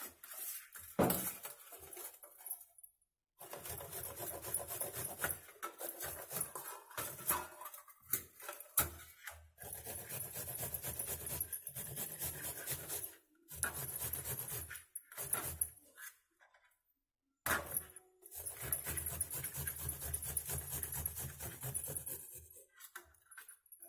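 Apple being grated on a stainless steel grater resting on a steel plate: fast, repeated rasping strokes with a dull knocking of the grater against the plate, stopping briefly a few times.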